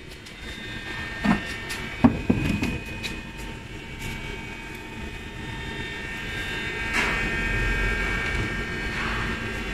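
Steady drone of workshop machinery, with several high whining tones over a low rumble that grows louder about seven seconds in. A few sharp knocks come about one and two seconds in.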